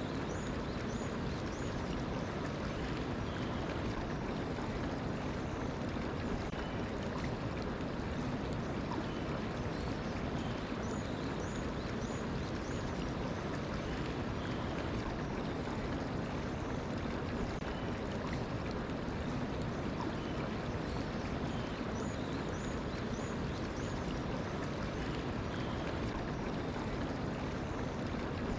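Mountain stream flowing steadily with an even rushing sound. Over it, a bird sings a short run of high chirps three times, about ten seconds apart.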